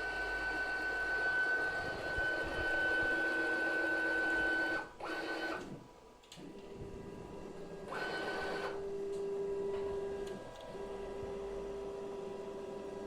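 Stepper motors of a DIY rack-and-pinion CNC router whining as the axes move, the pitch jumping to a new steady tone with each change of move, with a brief near-stop about six seconds in.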